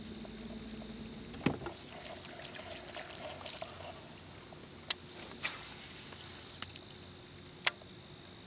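Light splashing and dripping of water with several sharp clicks spread through it, one followed by a brief hiss.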